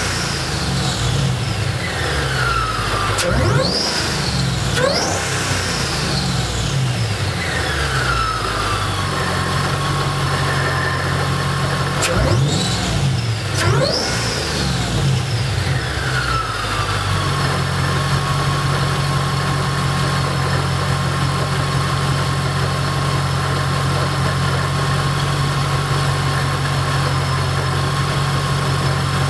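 Supercharged 5.4-litre V8 of a RENNtech-tuned Mercedes SL55 AMG, breathing through long-tube headers, revved in several throttle blips. A high supercharger whine winds down after each blip. From a little past halfway it settles into a steady idle.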